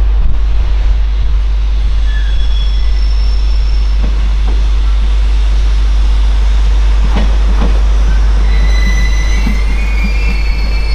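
Freight wagons moving at walking pace through station tracks, over a heavy low rumble, with a few clanks in the middle. Steel wheels start squealing on the rails near the end.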